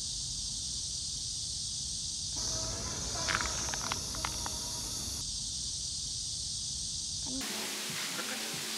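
Steady high-pitched chorus of insects with outdoor background noise; a few short clicks or chirps come about three to four seconds in.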